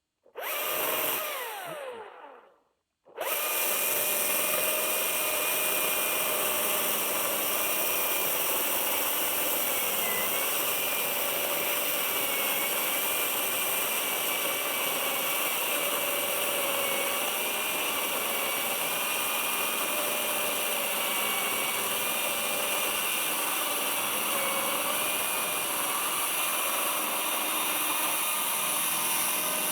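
Husqvarna 540i XP battery chainsaw: a short burst that winds down, then after a brief pause it starts again and runs steadily with a high whine, its pitch dipping slightly now and then.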